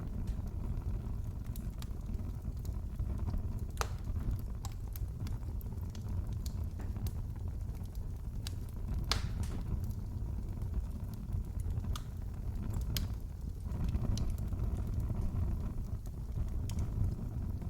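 Wood fire in a fireplace crackling: a steady low rumble of the flames with scattered sharp pops and snaps, a few louder ones spread through.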